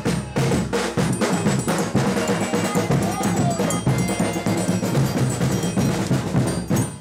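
A folia band playing a fast chula, with drums and percussion beating a quick, steady rhythm. It breaks off abruptly near the end.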